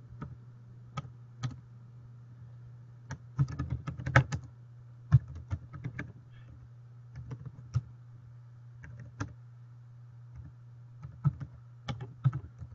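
Typing on a computer keyboard: irregular runs of key clicks with pauses between them, over a steady low hum.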